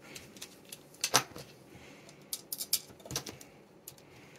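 Scattered small metallic clicks and taps of a precision screwdriver and screws being driven into the back cover of a small stepper motor, the loudest about a second in and a quick cluster a little after the middle.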